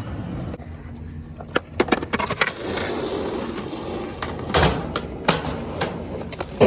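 Skateboard wheels rolling on a ramp, with a quick run of sharp clacks from the board's tail and trucks hitting the surface a couple of seconds in, and single knocks later on.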